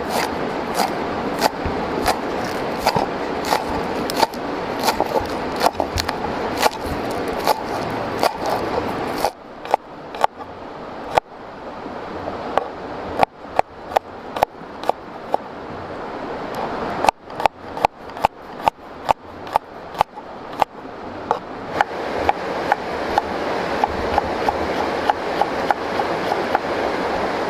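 Kitchen knife chopping spring onion and garlic on a wooden cutting board: a run of sharp, regular chops, about two to three a second in stretches, over a steady rushing background.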